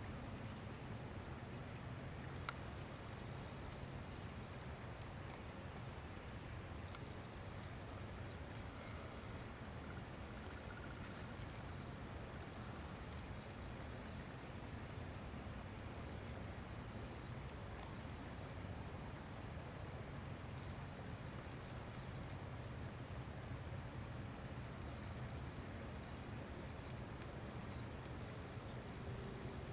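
Outdoor woodland ambience: faint, high-pitched chirps repeating irregularly over a steady low rumble, with a single click early on.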